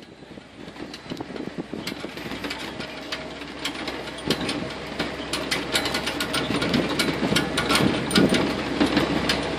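Swamp buggy engine running as the open vehicle rides along a dirt track, heard from on board, with frequent clicks and rattles over a steady drone. It fades in over the first few seconds.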